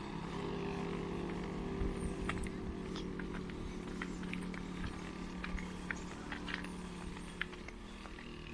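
An engine running steadily, slowly getting quieter, with scattered light clicks over it.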